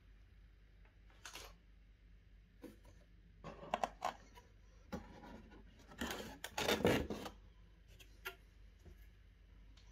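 Cardboard packaging being handled: a series of short scrapes and rustles as cardboard pieces are pulled and slid against each other inside a box, loudest about seven seconds in.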